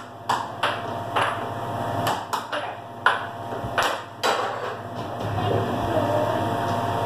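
Air hockey puck clacking off the players' mallets and the table rails in a fast rally: about nine sharp, irregular knocks, most of them in the first four and a half seconds. Under them runs the steady low hum of the table's air blower.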